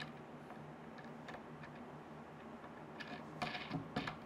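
Light clicks and a few knocks of small hardware as a hand works the bolts and butterfly nuts on the edge of an RC car work stand's plate, louder and closer together from about three seconds in, over a faint steady hum.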